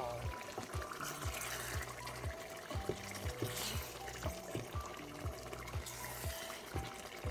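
Background music with a steady beat, a bass line and short synth notes.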